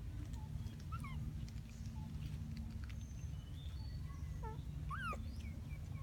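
Macaque squeaks and short chirping calls, a few sweeping up and down in pitch, most of them near the end. A low steady rumble runs underneath.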